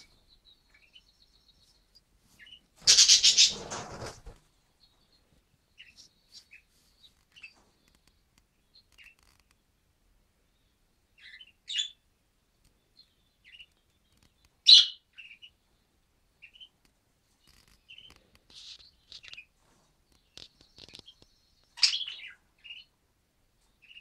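Pet budgerigars chirping in short, scattered high calls, a few louder than the rest. A louder, harsher burst lasting about a second comes about three seconds in.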